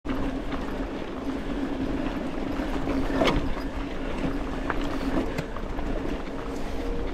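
Commencal Meta TR 29 mountain bike rolling down a stony dirt singletrack: tyres on dirt and stones, the bike rattling and knocking, a steady hum and wind on the microphone, with a sharp knock about three seconds in.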